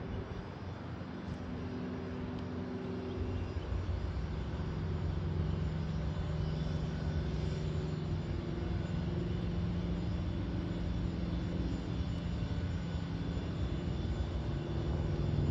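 Distant jet aircraft engines running steadily, a rumble that grows louder a few seconds in and then holds.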